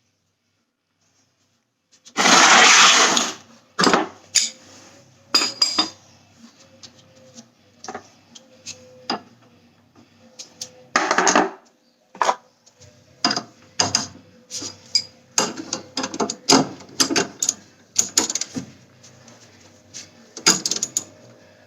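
Metal clanks and clicks of tools and steel suspension parts being handled during rear suspension work, coming irregularly. A loud harsh burst of about a second starts roughly two seconds in.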